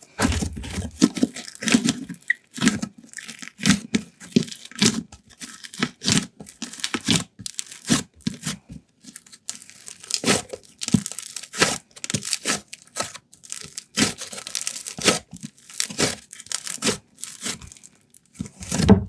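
Slime being stretched, squeezed and folded by hand, giving irregular sticky crackles and small pops one after another.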